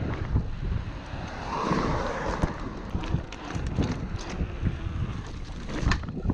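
Wind buffeting the GoPro's microphone over the rumble of a mountain bike's knobby tyres rolling on concrete sidewalk, with scattered clicks and rattles from the bike. There is a louder knock near the end.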